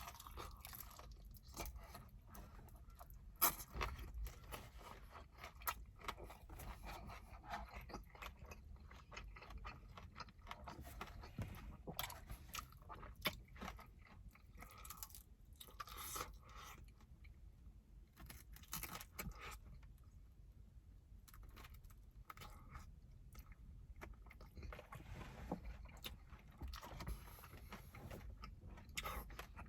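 Close-miked chewing and biting of sticky glazed fried chicken wings: irregular crunches and clicks, with one sharper crack about three and a half seconds in.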